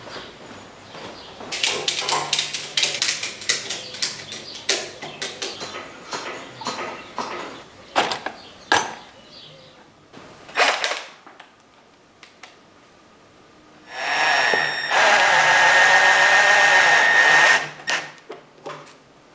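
Screws clicking and rattling against each other in a plastic tub as they are picked out by hand, then a cordless drill-driver runs with a steady motor whine for about three and a half seconds, winding a wood screw into a motorcycle tyre's tread.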